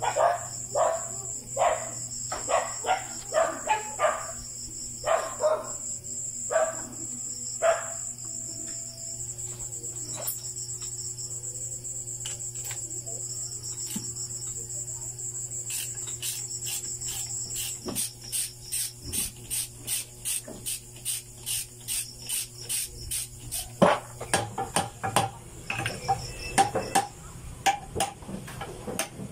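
Crickets trilling steadily, with scattered knocks and clinks of hand work on a boat transmission. From about halfway, a regular run of sharp clicks comes in, about two a second.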